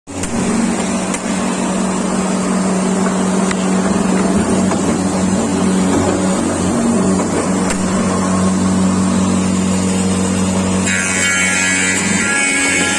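An electric woodworking power tool's motor running steadily with a constant hum. About eleven seconds in, a brighter, higher sound joins it.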